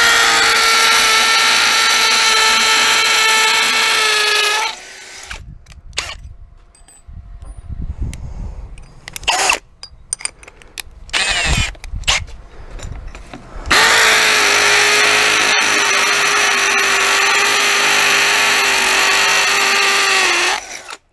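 Corded electric drill boring into the brick wall at the gate's latch post: a steady high whine for about four and a half seconds, stopping suddenly. After a pause filled with clicks and short bursts of handling noise, it runs again steadily for about seven seconds and stops just before the end.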